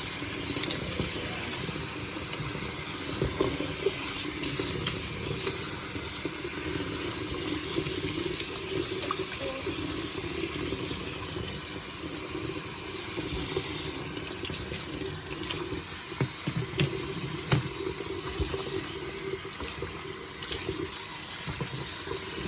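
Tap water running steadily into a sink as fidget toys are rinsed under it, with a few light knocks from the toys being handled.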